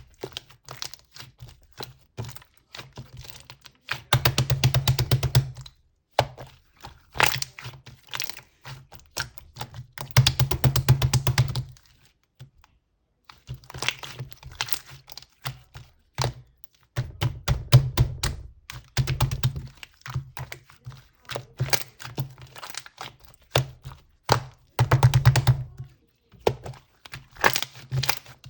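Slime being pressed and worked by hand, giving dense runs of sharp clicks and crackles in bursts, with several louder, faster stretches and a brief pause about twelve seconds in.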